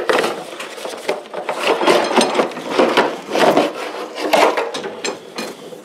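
A Marolex sprayer boom's metal tubes and plastic nozzle holders being pulled out of a cardboard box: irregular scraping and rubbing of cardboard against metal and plastic, swelling louder several times.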